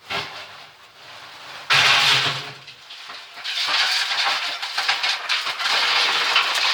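Lumps of coal poured from a sack into a coal pan, rattling and clattering. There is a loud rush about two seconds in, then a steady pour from about three and a half seconds on.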